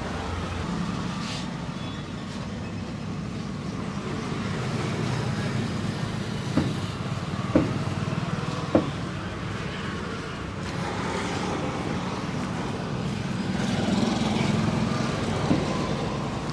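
Steady street traffic noise, with three sharp knocks about a second apart in the middle and one more near the end.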